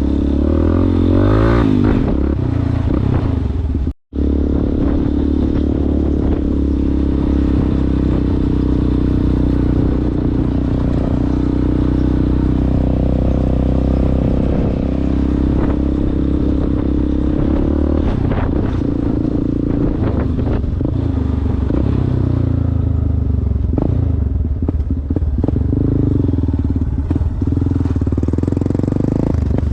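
Yamaha Ténéré motorcycle with an aftermarket Coyote exhaust running steadily on an off-road ride, its engine note rising and falling with the throttle. Scattered knocks and clatter join in during the second half, and the sound cuts out for an instant about four seconds in.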